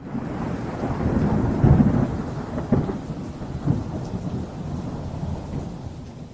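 Deep rumbling intro sound effect. It swells over the first two seconds, has a few heavier jolts about two, three and four seconds in, then slowly fades out.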